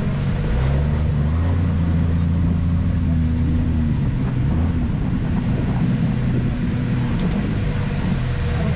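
Ultra4 off-road race car's engine running, heard from inside the open cockpit as the car drives along, its note stepping up and down a few times.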